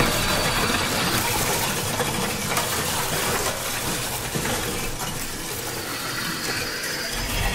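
A dense rushing noise like gushing water, part of a live experimental sound performance, slowly fading toward the end.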